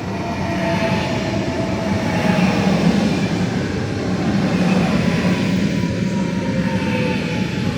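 A train running by close at hand: a loud, steady rumble, with faint tones above it sliding slowly down in pitch.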